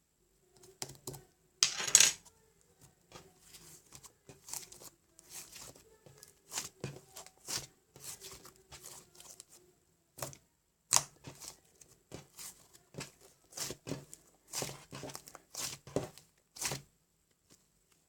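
Short crinkling and tearing noises, one after another at an irregular pace, with the loudest about two seconds in.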